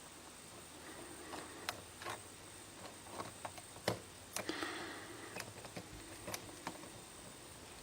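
Faint, irregular clicks and light scraping of a hook pick and tension wrench working the pins of a Lockwood key-in-knob lock cylinder, with the sharpest click about four seconds in followed by a short scrape.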